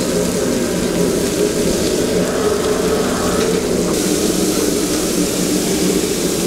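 Mullet steaks sizzling in hot oil on a flat griddle pan, over a steady mechanical roar with a low hum.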